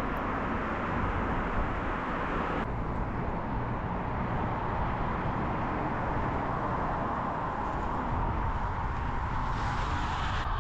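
Steady rush of wind and road noise from a bicycle riding fast down a long hill, with the hiss easing slightly about two and a half seconds in.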